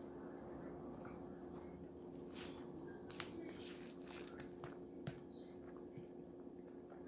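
Close-up eating sounds of cheese fries and roast beef: wet chewing and mouth noises, with a few sharp clicks of a metal fork against the plate, over a steady faint hum.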